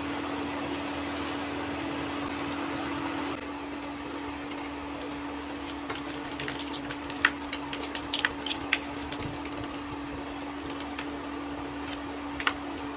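Hot oil sizzling steadily as onion pakoras deep-fry, over a steady low hum. A few sharp clicks and pops come between about six and nine seconds in and once more near the end.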